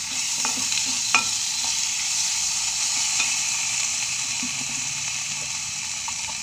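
Onions, curry leaves and green chillies sizzling in hot oil in an aluminium pan as ginger-garlic paste is stirred in with a wooden spatula. A steady high hiss, with a few scrapes and taps of the spatula against the pan, the sharpest about a second in.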